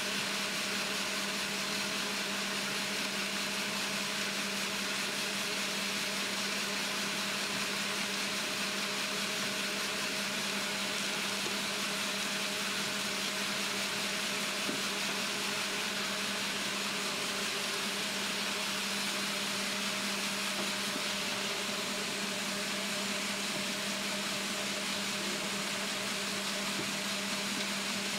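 Concrete mixer truck running steadily, a constant engine and drum hum with one steady low tone, as it discharges down its chute.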